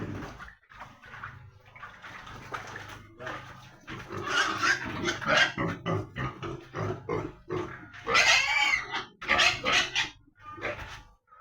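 Pigs grunting and squealing in a run of short, irregular calls, with the loudest high squeals in the second half.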